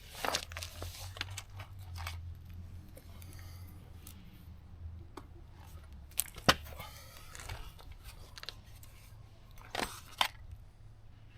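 Rustling and handling noises with a few sharp clicks as a small portable tire air pump is unpacked from its case and its coiled hose and power lead are handled and connected. The loudest click comes a little past the middle, and there is a short cluster of clicks near the end.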